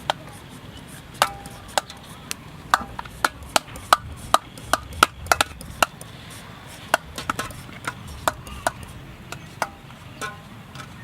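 Knife chopping on a cutting board: a quick, irregular run of sharp strikes, thicker in the first half and thinning out toward the end.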